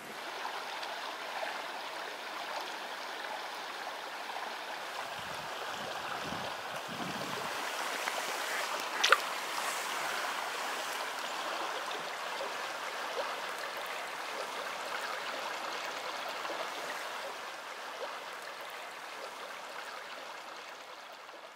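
Shallow trout stream's water running steadily, with one sharp click about nine seconds in.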